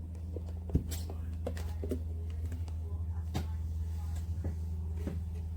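A few sharp clicks and knocks from a plastic food storage container being handled, the loudest just under a second in, over a steady low hum.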